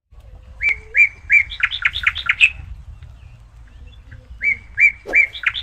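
A songbird singing the same short phrase twice: three short whistled notes, then a quick run of rising and falling notes. The phrase comes about half a second in and again near the end, over a steady low hum.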